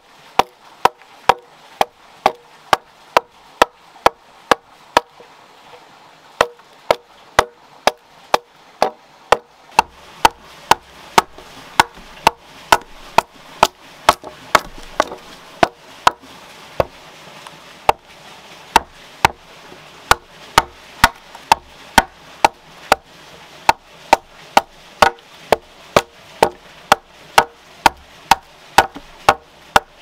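An axe chopping into a split log to hew it flat: sharp, regular strikes about twice a second, with two brief pauses.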